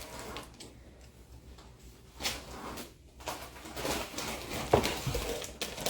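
Plastic vacuum-seal storage bag being handled, with irregular rustling and crinkling that grows busier in the second half.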